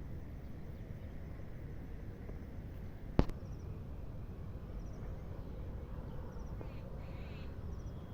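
Outdoor ambience: a low steady rumbling noise with a few faint, high bird chirps in the second half, and a single sharp knock about three seconds in.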